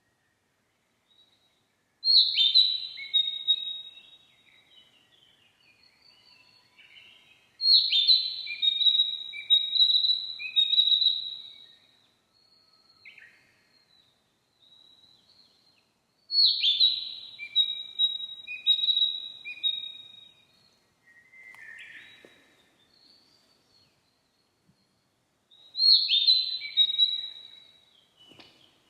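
Narcissus flycatcher singing: four song phrases several seconds apart, each opening with a loud high note and followed by a run of repeated lower notes.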